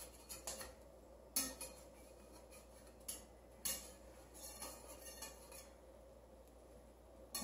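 Metal spatula clinking and scraping against a copper frying pan while an omelet is worked loose and flipped: a handful of short, light clicks spaced irregularly.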